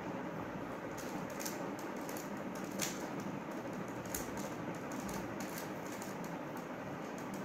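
Plastic 3x3 puzzle cube being turned by hand, its layers giving quick irregular clicks and snaps, with two sharper snaps near the middle, over a steady background hiss.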